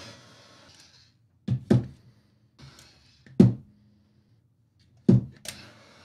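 Heat gun shrinking marine heat-shrink tubing: a faint airy hiss that comes and goes, broken by sharp thunks, a pair about one and a half seconds in, the loudest at about three and a half seconds, and another pair near the end.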